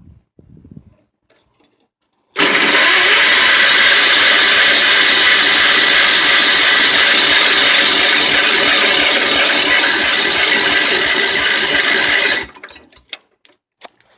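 Wheel Horse garden tractor's 10 hp Kohler engine being cranked by its starter for about ten seconds without catching. It starts and cuts off abruptly. The engine turns over but does not run even with spark restored, which the owner takes to point to the carburetor.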